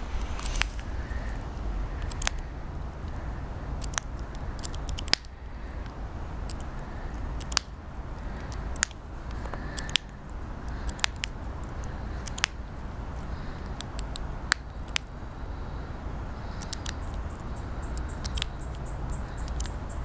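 Australian magpie pecking sunflower seeds off a stone wall: irregular sharp clicks and taps of its beak on the stone, about one every second or two, over a low steady rumble.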